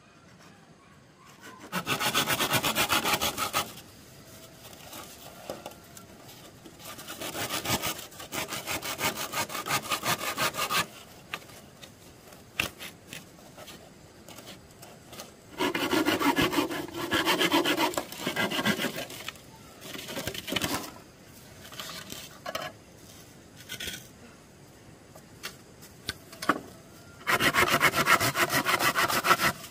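Wood being cut with a hand saw, in five bouts of rasping strokes separated by short pauses, with a few light knocks in the gaps.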